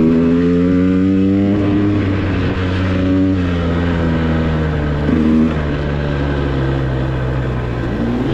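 KTM 150 XC-W two-stroke dirt bike engine pulling under changing throttle on a trail: the revs climb and drop off about a second and a half in and again around three seconds, blip briefly near five seconds, then fall slowly.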